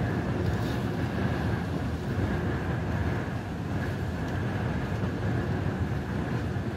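Strong gale wind blowing across the microphone: a steady, rough low rumble of buffeting with a hiss over it, the wind of a storm whipping up whitecaps on the harbour water.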